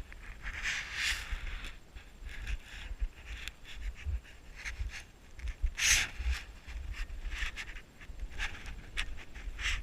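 Footsteps in deep snow: an irregular series of soft crunches and swishes.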